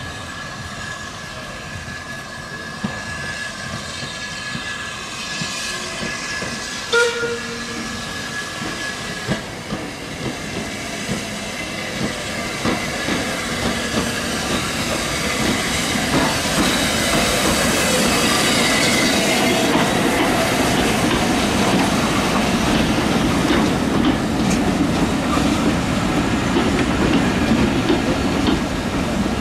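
A small steam tank locomotive, the Metropolitan Railway E class tank No.1, draws near with its train and runs past. Its steam hiss and chuffing grow louder over the second half, and the coach wheels then clatter over the rail joints as the coaches go by.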